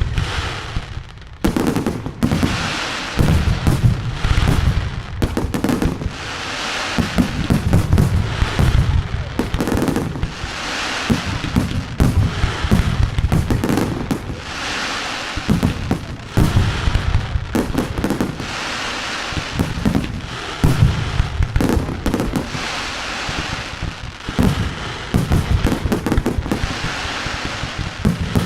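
Daylight fireworks going off in a dense barrage: many loud bangs in quick, irregular succession, with crackling in between.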